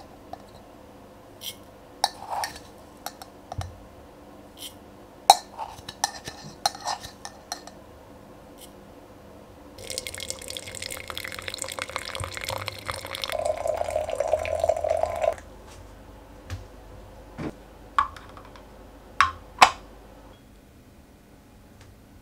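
Light clinks and taps as loose black tea goes into a glass teapot, then water poured into the pot for about five seconds, followed by a few sharp glass clinks.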